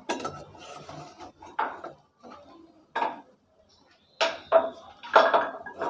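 Perforated steel skimmer clinking and scraping against a frying pan several times as fried pastries are lifted out of the oil.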